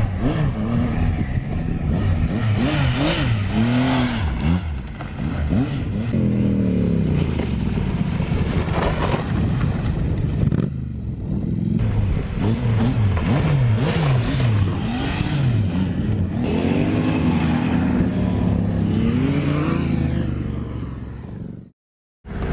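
Triumph Tiger three-cylinder motorcycle engine revving up and dropping back again and again as the bike accelerates and slows on loose gravel. The sound cuts off suddenly about a second before the end.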